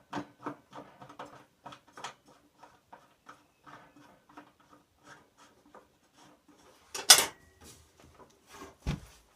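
Workshop handling noises while working a rusted blade off a table saw: scattered small clicks and knocks, a loud scrape about seven seconds in, and a low thud near the end.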